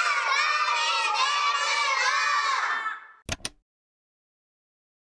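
A group of children's voices shouting together for about three seconds, then two quick clicks.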